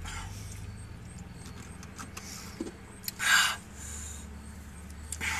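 Low steady hum inside a car cabin, with a few breathy exhales from a man whose mouth is burning from hot peppers; the loudest is a sharp hissing breath a little over three seconds in.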